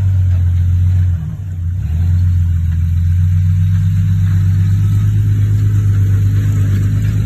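A rock-crawling Jeep Wrangler's engine running at steady low revs as it climbs its front tyres over rock ledges, with a brief dip in level about a second in before it picks up again.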